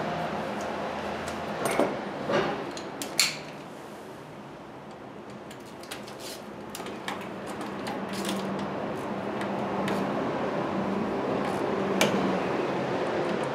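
Hand tools clinking against metal as the alternator's mounting bolts are snugged up, with a few sharp clinks about two and three seconds in and another near the end, over a steady low hum.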